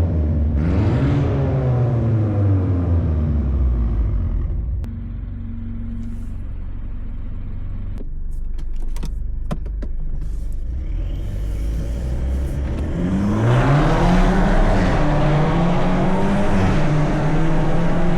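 Tuned BMW 220i's B48 turbocharged four-cylinder engine, with a stage-2 map, free-flow downpipe and M240i exhaust. The revs fall away in the first few seconds, then it runs quietly and steadily for a while with a few sharp clicks. About two-thirds of the way in it accelerates hard, the pitch climbing and stepping through gear changes.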